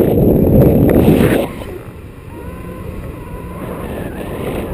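Wind rushing and buffeting over a pole-mounted action camera's microphone in tandem paraglider flight, loud for about a second and a half, then dropping suddenly to a softer, steady rush.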